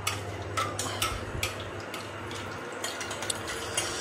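A metal spoon stirring in a cooking pan, with irregular light clinks and scrapes against the pan's side.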